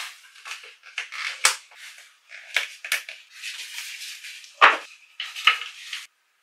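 Wooden frame and canvas folding bag being folded and handled on a wooden tabletop: a quick run of sharp clicks and wooden knocks with cloth rustling between them. Two louder knocks come near the end as the wooden board and bundle are set down.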